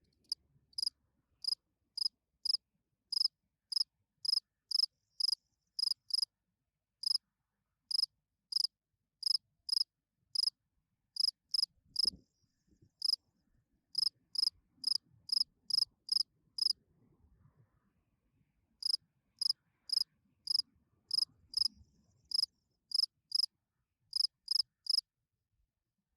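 Field cricket chirping: short, high chirps repeated about twice a second, with two brief pauses, stopping shortly before the end.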